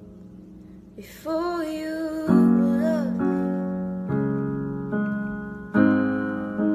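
Piano chords struck slowly one after another, each left to ring, after a quiet first second. A woman's voice sings a wordless, wavering line over the first chords.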